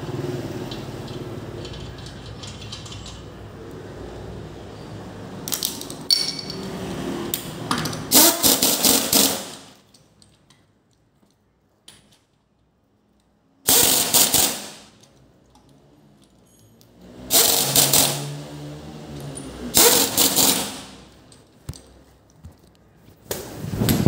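Impact wrench run in several short bursts of rapid hammering, about five in all, with pauses between them, as when wheel nuts are run on or off.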